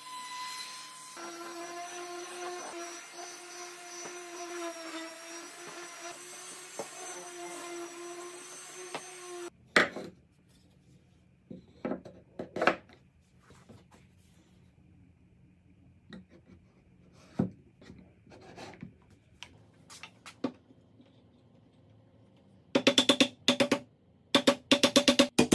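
An electric sander with a dust-extraction hose runs steadily on laminated merbau and rubberwood strips, stopping about nine seconds in. Scattered sharp knocks of wooden pieces being handled follow, and near the end comes a fast run of loud clicks.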